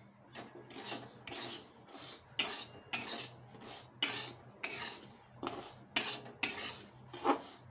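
Steel spoon scraping and stirring dry semolina, moong dal and raw peanuts around an aluminium kadai with no oil, in regular strokes about twice a second: the semolina being dry-roasted.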